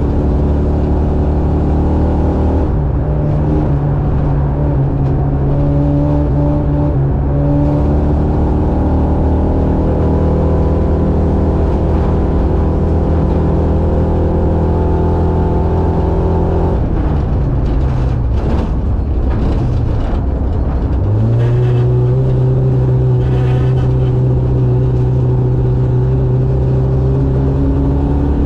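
Racing buggy engine running hard at steady high revs. About seventeen seconds in the revs fall away and bottom out, then pick back up within a second or two and hold steady again.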